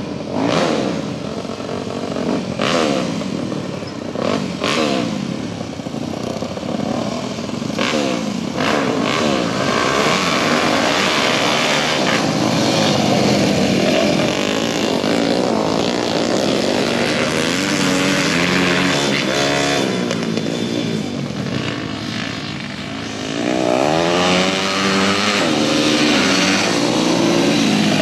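Several flat-track racing dirt bikes racing around a dirt oval, engines revving hard throughout. Their pitch sweeps up and down as bikes pass close, most clearly about two-thirds of the way in and again near the end.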